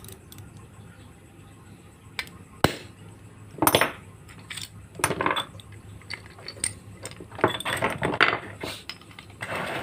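Screwdriver prying and scraping inside the aluminium screw cap of an LED bulb, working the driver board loose: one sharp click about three seconds in, then several short metallic scrapes and clatters of metal and plastic parts.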